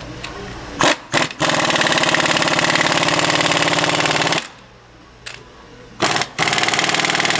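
Pneumatic impact wrench running nuts down on the bonnet studs of a 4-inch mud gate valve. Two short blips about a second in, then about three seconds of rapid hammering. After a pause and another blip, a second hammering run starts near the end.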